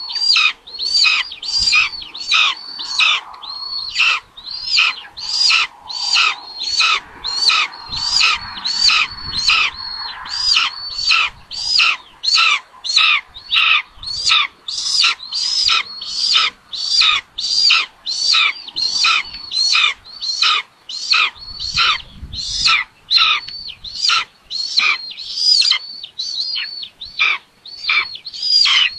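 Raptor nestlings begging with a steady string of short, high calls, each falling in pitch, about one and a half a second, while an adult feeds them in the nest.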